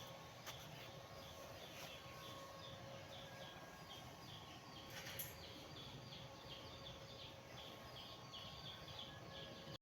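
Faint outdoor background with a small animal chirping in a quick, regular series throughout, over a faint steady tone.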